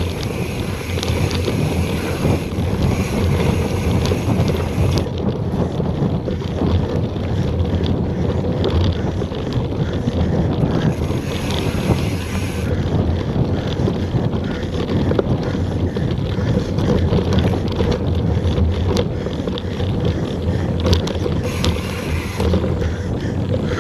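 Wind rushing over an action camera's microphone as a mountain bike rides fast along a dry dirt singletrack, mixed with tyre noise on the dirt and scattered clicks and rattles as the bike goes over bumps.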